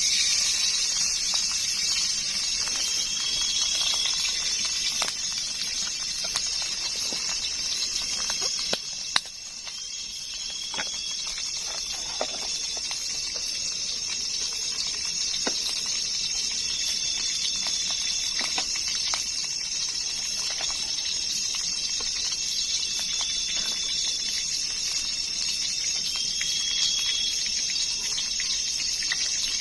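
Steady chorus of night insects such as crickets, with a short repeating chirp every couple of seconds and scattered small clicks.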